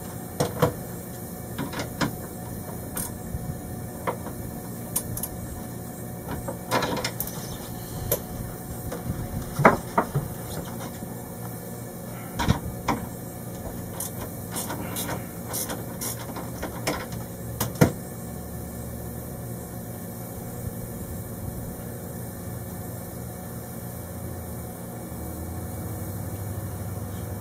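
Irregular clicks and knocks of hands handling wiring and hardware at a boat's ground bus, a few of them sharper, over a steady low hum.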